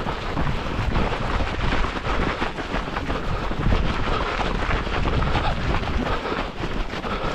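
Wind buffeting the microphone of a camera carried on a run: a loud, uneven rushing noise, heaviest in the low end.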